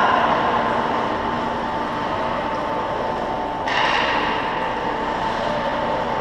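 Indoor ice rink ambience during a hockey game: a steady hum and rush of noise, with a burst of brighter hiss coming in about three and a half seconds in.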